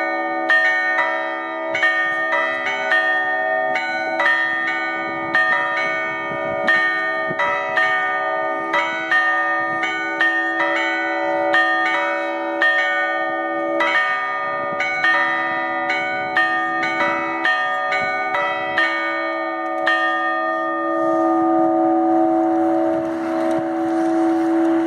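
A set of church tower bells cast in 1891 ring out together, struck one after another in an uneven peal, about one or two strikes a second. About 20 s in the strikes stop and the bells go on humming as they fade, the lowest tone holding strongest.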